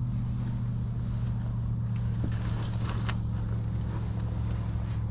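A steady low motor hum, with a few faint clicks partway through.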